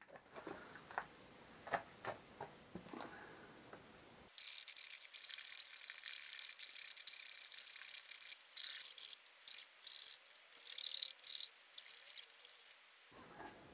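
A hand tool scraping plastic from the edge of a sump-pan gasket's moulded windage tray, notching it where it fouls the studs. After a few faint clicks of handling, it goes in a run of quick hissy strokes with short pauses, stopping about a second before the end.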